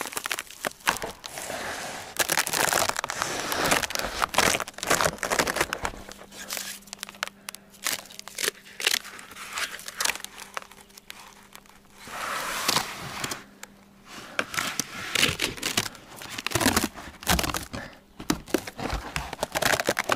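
Birch bark being peeled and torn away from a birch trunk in sheets: crackling, crinkling and tearing in several spells with short pauses.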